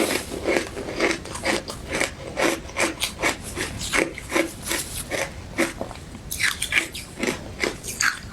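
Close-up chewing of crunchy ice dusted with matcha powder: a steady run of crisp crunches about two a second, with a quicker flurry of crunches a little past six seconds in, like a fresh bite.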